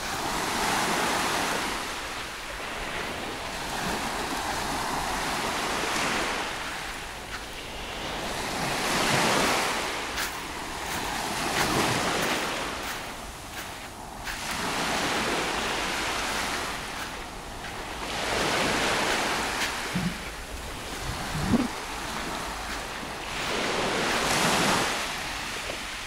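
Small sea waves breaking and washing up a pebbly shore, swelling and falling back in slow surges every few seconds.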